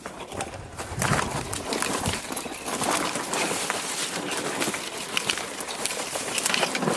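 Footsteps crunching and rustling through dry brush and ground litter: a dense, irregular crackling.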